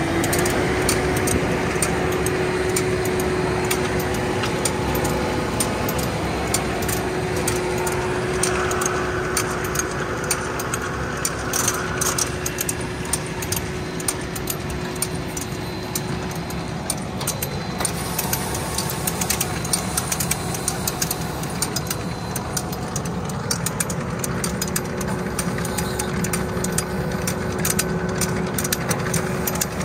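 Tractor diesel engine idling steadily: a constant hum with fast ticking over it.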